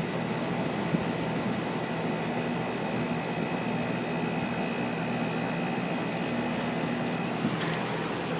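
Two Carrier Infinity 17 outdoor condensing units running together: Gentek-motor fans with three forward-swept blades giving a steady whoosh over the low hum of their Copeland two-stage scroll compressors, with a faint steady high whine. A small tick sounds near the end.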